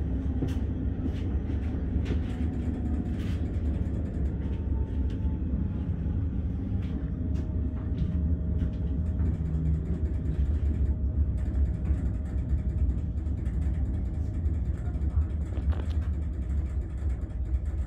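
Steady low rumble of a passenger train running along the track, heard from inside the carriage, with a few sharp clicks in the first seconds and a faint whine for several seconds midway.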